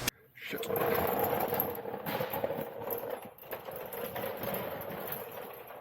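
Irregular scraping and clinking of a 3/16 steel brake line being worked and pulled through the car's body, metal rubbing and knocking as it goes.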